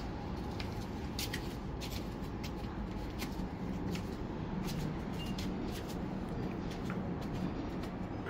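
Leaves and stems rustling and crackling as garden plants are handled, with many sharp irregular clicks over a steady low background rumble.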